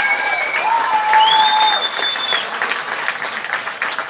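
A crowd of spectators applauding as a rugby team runs onto the field, a dense patter of clapping. In the first two seconds several long, steady high tones sound over the clapping, one after another and overlapping.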